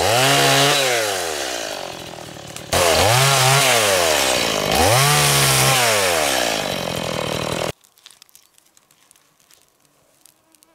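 Stihl MS180 small two-stroke chainsaw cutting branches, its engine revving up and sagging three times, then cutting off abruptly.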